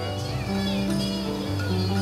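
Background music with plucked guitar notes over sustained chords.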